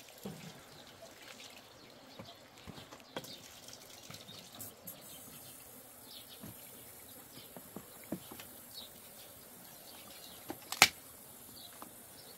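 Water from a garden hose running faintly and trickling onto wooden pallet boards, with scattered light knocks and one sharp click near the end.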